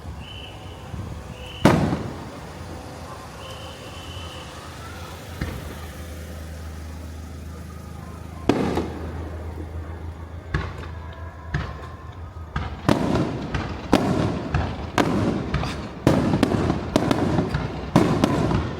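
Aerial fireworks shells bursting: a single sharp bang about two seconds in, a bigger boom a few seconds later, then a quickening run of sharp bangs that grows denser toward the end.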